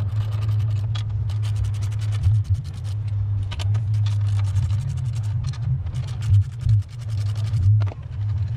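Ratchet socket wrench clicking in quick runs as bolts are undone from a front panel plate, with a few tool scrapes, over a steady low hum.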